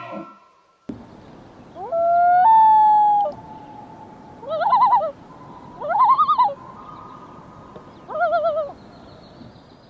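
An animal's whistle-like calls over a steady hiss: one long call that jumps up in pitch and then holds, then three shorter wavering calls spaced a second or two apart.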